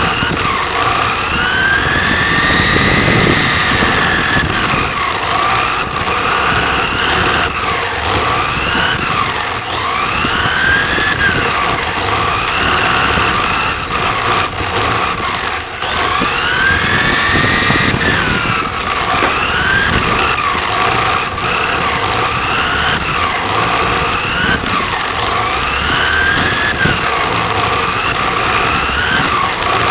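Onboard sound of a 1/10-scale electric USVTA RC touring car at racing speed. The motor and gears whine, rising and falling in pitch about every two seconds as it accelerates and brakes through the laps, over a steady rushing noise.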